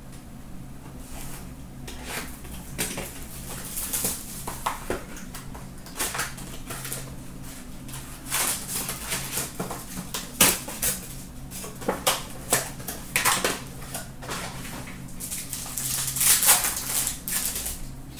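Hockey card packs and cards being handled: the crinkle and rustle of packs and cards, with quick clicks of card stock flicking and sliding in the hands. The sounds come in clusters, loudest about halfway through and again near the end, over a steady low hum.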